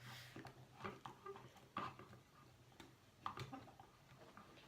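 Near silence with a few faint clicks and taps of a plastic doll and toy horse being handled.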